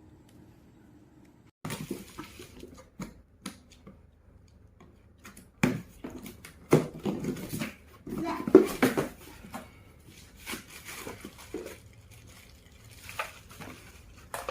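Irregular knocks, clicks and clatter of hard objects being handled, starting about a second and a half in.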